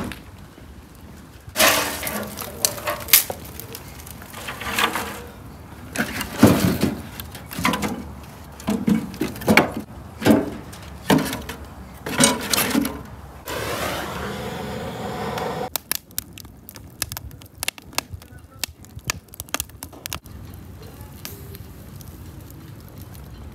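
Split firewood logs knocking and clattering against each other and the metal stove as they are loaded in by hand, followed by a steady rushing noise for about two seconds, then a wood fire crackling in the stove, the crackles thinning out near the end.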